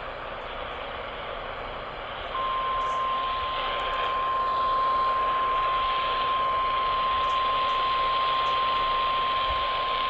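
Radio static hiss, then about two seconds in a single steady alert tone starts and holds: the weather-radio warning alarm tone that opens an Emergency Alert System severe-weather warning.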